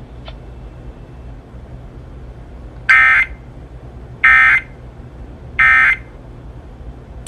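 Three short, identical Emergency Alert System digital data bursts, each under half a second and a little over a second apart. This is the SAME end-of-message code that closes a broadcast alert.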